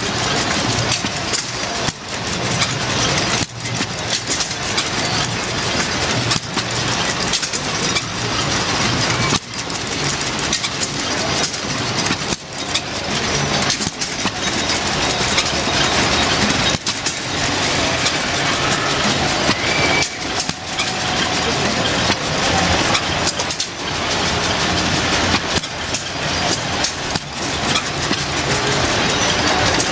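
Early Aermotor eight-cycle hit-and-miss pumping engine running, working a walking beam and a cast-iron pitcher pump, under a steady broad hiss.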